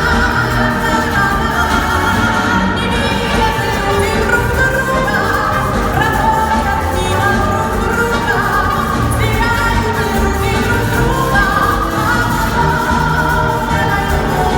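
Music: a song with singing over instrumental accompaniment.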